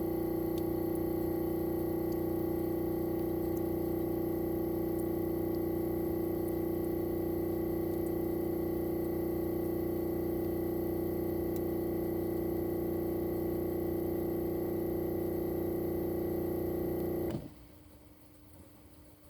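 Daikin ARN22HS air-conditioner outdoor unit running steadily: a loud, even hum from its inverter-driven swing compressor, with a strong mid-pitched whine and several higher tones above it. About 17 seconds in, it shuts off abruptly, consistent with the unit switching between its defrost and heating stages.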